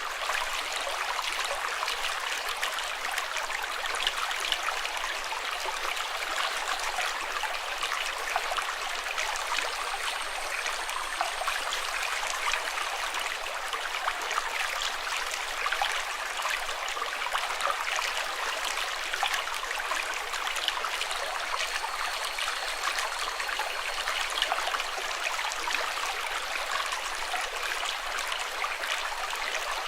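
Running water flowing steadily, with a dense patter of small splashes, like a stream over stones.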